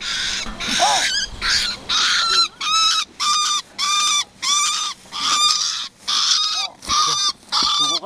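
Bird calls: a harsh, honking note repeated about twice a second in a steady series, each note briefly rising and falling in pitch.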